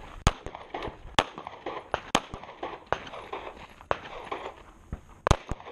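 A string of pistol shots from a compact back-up pistol, fired one at a time at an unhurried pace of about one shot a second, each a sharp crack.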